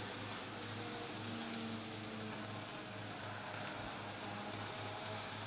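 Kato N-scale CSX GE AC4400CW locomotive pulling coal hoppers around the track on DC power, running faintly: a steady hiss with a low hum that pulses about four times a second.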